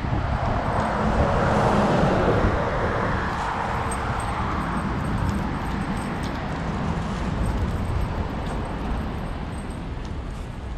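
Outdoor urban background noise: a steady low rumble under a broad hiss that swells a second or two in and then slowly fades.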